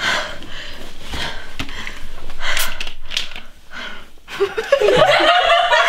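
A woman breathing hard, with heavy breaths and gasps, then voice sounds near the end.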